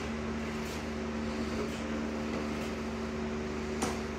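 A steady machine hum, with a few faint metallic ticks and one sharper metal clink near the end.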